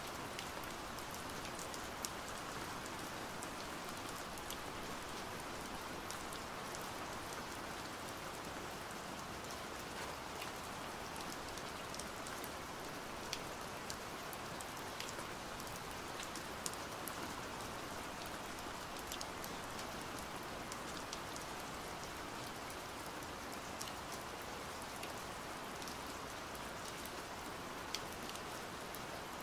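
Steady rain falling: an even hiss with many small drop ticks scattered through it.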